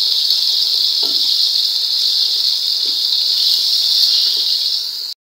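Oil sizzling steadily in a steel pot of frying onions, tomatoes and ginger-garlic paste as they are stirred with a spatula; the hiss breaks off for a moment near the end.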